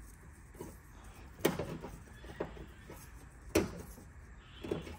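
Small trim clips being pushed by hand onto the studs of a car's rear body panel: a few sharp clicks and knocks, the loudest about one and a half and three and a half seconds in.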